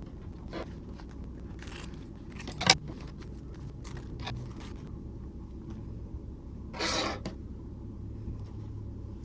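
Hands handling and pulling apart a layered disposable mask: short rustles and scrapes, a sharp click a little under three seconds in, and a longer scrape near seven seconds, over a low steady hum.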